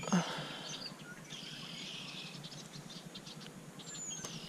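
Footsteps in muck boots and rustling of brush as someone pushes through vegetation along a creek bank. A bird gives a thin, high, falling whistle twice, at the start and again near the end.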